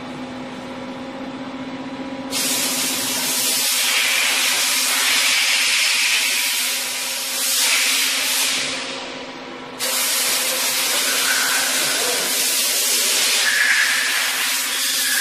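Doosan Puma 700XLM CNC lathe running under test: a steady low hum, then a loud rushing hiss that switches on abruptly about two seconds in, eases off around nine seconds and starts again abruptly near ten seconds.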